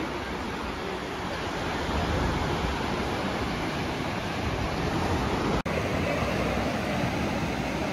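Steady rush of ocean surf breaking on a sandy beach. The sound drops out for an instant about two-thirds of the way through.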